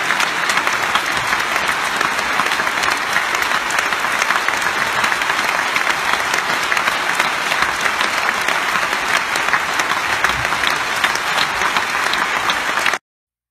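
Concert audience applauding steadily, many hands clapping together; the applause cuts off suddenly near the end.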